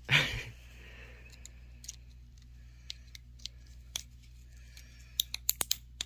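Hand cutters snipping and prying apart plastic fluorescent-tube lamp holders to free their brass contacts: scattered sharp clicks and snaps, with a quick run of several louder clicks near the end. A short loud noise at the very start.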